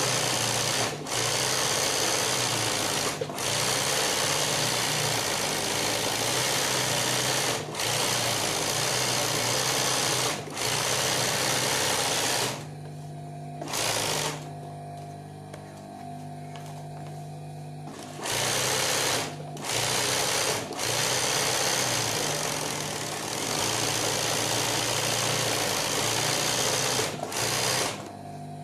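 Industrial sewing machine doing free-motion embroidery, stitching in runs of a few seconds with brief stops, and a longer stop of about five seconds near the middle. The motor's low hum carries on steadily through the stops.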